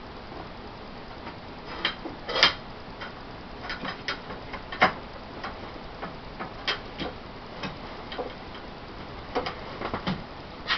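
Irregular light clicks and taps of small metal hardware and tools being handled, with no motor running. The loudest knock comes about two and a half seconds in.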